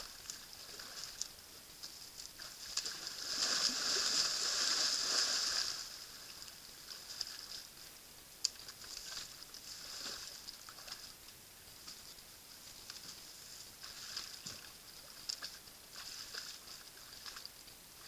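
Bull elk splashing and sloshing in a muddy wallow. A louder stretch of splashing starts about three seconds in and lasts a few seconds, followed by scattered smaller splashes and knocks.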